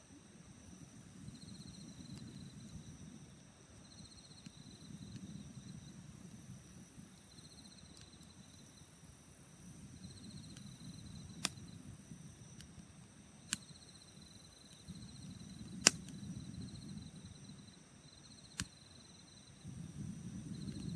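Insects trilling in repeated short bursts over a steady high insect hum, with a soft low rushing that swells and fades every few seconds. In the second half, a wood campfire gives four sharp pops, the third the loudest.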